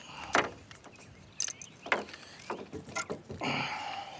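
A hooked channel catfish being landed at the water's edge: a string of sharp splashes and knocks as it thrashes, then a short rushing splash near the end.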